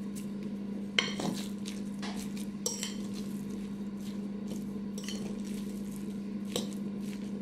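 A metal fork stirring a raw ground-meat stuffing in a ceramic bowl, with scattered clinks of the fork against the bowl, the sharpest about a second in, near three seconds and near the end. A steady low hum lies underneath.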